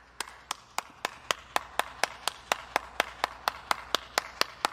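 One person clapping at a steady, even pace, nearly four claps a second.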